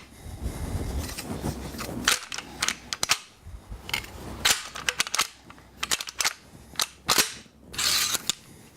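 Sharp metallic clicks and clacks, spaced irregularly, of an AK-47 rifle's parts being slid and snapped back into place during reassembly after a field strip, with some low handling noise in the first couple of seconds.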